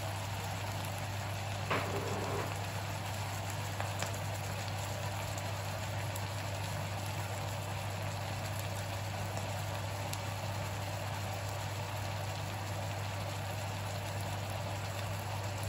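Wood blewit mushrooms sizzling and bubbling in a frying pan on full heat as their juice boils off, over a steady low hum, with a faint tap about two seconds in.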